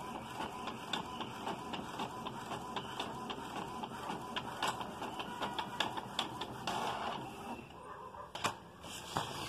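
Epson L380 ink-tank inkjet printer printing a page: the print head shuttles across with rapid clicking and ticking as the sheet feeds through. The busy clicking thins out near the end to a few separate clicks.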